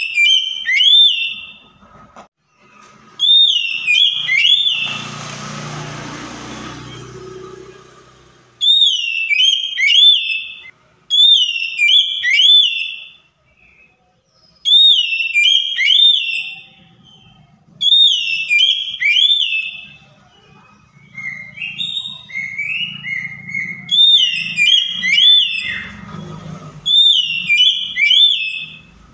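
Oriental magpie-robin (kacer) singing: a loud whistled phrase of two or three swooping notes, repeated about every two to three seconds. A few seconds of hissing noise come in about five seconds in.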